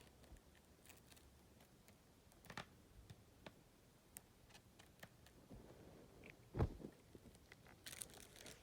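Faint scattered clicks and taps of a shrink-wrapped plastic CD jewel case being handled, fingers picking at the seal, with one louder knock about six and a half seconds in.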